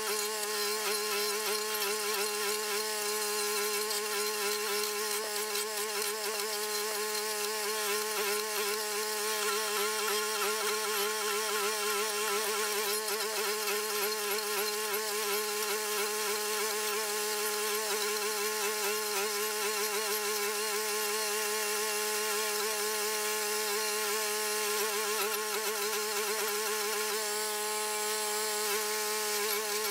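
Toro walk-behind stump grinder's small gasoline engine running at full throttle with a steady, wavering buzz while its toothed cutting wheel grinds into a stump.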